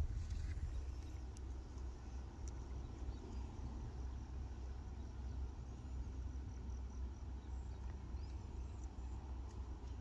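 Outdoor ambience: a steady low rumble of wind on the microphone, with insects chirping faintly.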